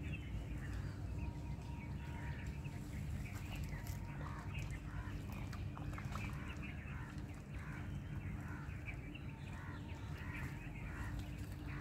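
Birds calling outdoors, many short calls scattered throughout, over a steady low hum.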